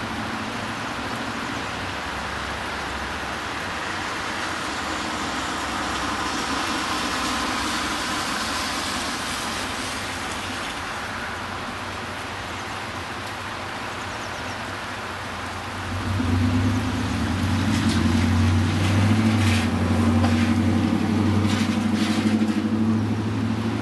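Steady rain hiss, with the swish of a car's tyres on the wet road rising and fading about a quarter of the way in. About two-thirds of the way in a motor vehicle's engine sets in with a low hum and runs until just before the end, with a few sharp clicks over it.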